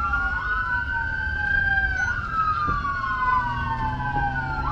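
Police car siren wailing, its pitch sweeping slowly up and down, with a second sweep overlapping it, over a low rumble from the moving vehicle.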